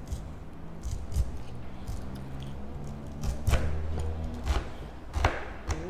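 Background music with steady low held notes, over several sharp knocks and cuts as a knife slices the skin off a whole pineapple close to the microphone.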